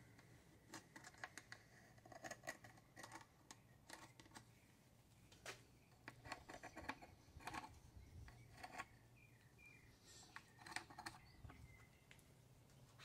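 Faint, scattered short scratches and light ticks of a pencil tracing around a round cutter held against an outboard motor hood, with gloved hands shifting on the plastic.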